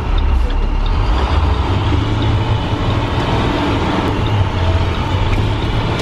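School bus engine running and road noise, heard from the driver's seat as the bus drives along: a steady low rumble.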